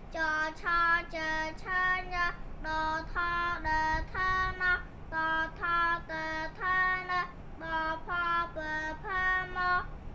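A young girl chanting the Khmer consonants in a sing-song voice, one syllable after another at about two to three a second, each held on an even note.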